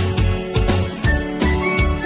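Upbeat background music with a steady bass beat and plucked, guitar-like notes.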